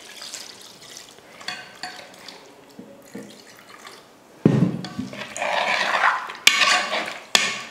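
Water poured into an aluminium pressure cooker over spice-coated mutton pieces, with faint splashing. About halfway through, a steel spoon starts stirring the meat and water, much louder, sloshing and knocking against the pot twice near the end.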